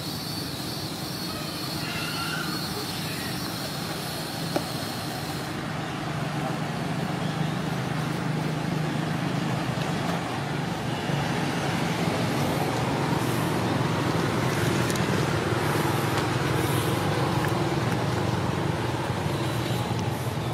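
A low steady engine hum that grows louder about six seconds in. A thin high steady tone runs under it and stops at about the same point.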